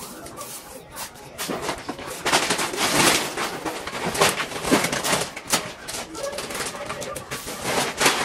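Rustling, crinkling and scraping of a sheet of self-adhesive wallpaper being handled and smoothed onto a wall: a run of short noises, loudest about three seconds in.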